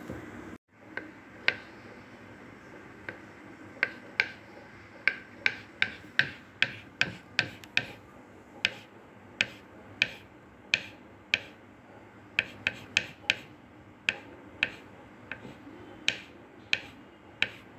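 Kitchen knife slicing a red onion on a wooden cutting board: a run of sharp taps as the blade strikes the board, about two a second and unevenly spaced.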